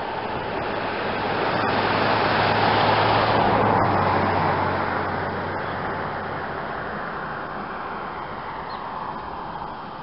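A car passing by on the road. Its engine and tyre noise grow to their loudest about three seconds in, then fade away.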